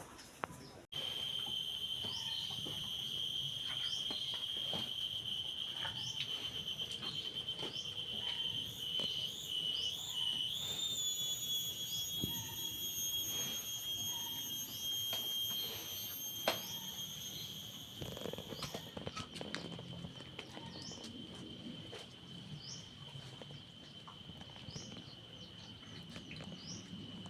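Steady high-pitched insect drone that holds one tone, wavering briefly in pitch near the middle, with short rising bird chirps and scattered clicks over it.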